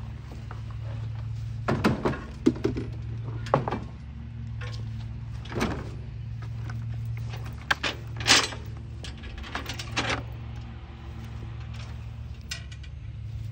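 Scattered metal clanks and chain rattles as a backpack leaf blower is set into a trailer's equipment rack and chained down, over a steady low engine hum.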